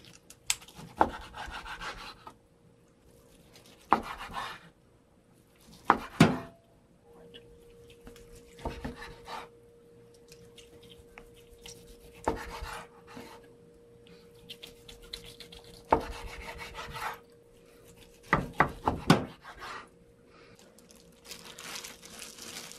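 Kitchen knife slicing through boiled pork on a wooden cutting board: rasping strokes through the meat, each slice ending in a sharp knock of the blade on the board, a few seconds apart. Near the end, plastic food gloves rustle as the slices are handled.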